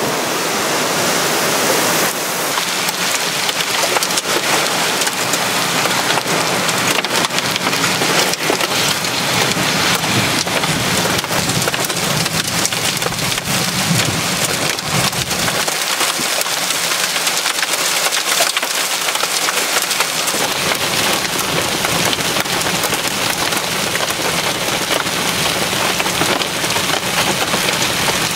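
Heavy thunderstorm rain pouring down in strong wind, a steady loud rush dotted with countless sharp hits on hard surfaces.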